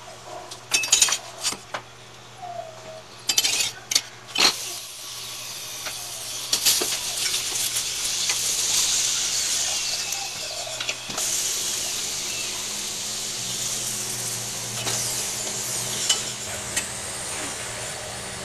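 Metal spoon clinking and scraping on a hot iron tawa several times in the first few seconds, then oil sizzling steadily under a stuffed pea paratha as it fries.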